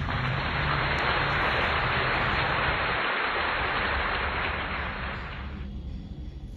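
Steady hiss like static or white noise over a low rumble, fading out about five and a half seconds in.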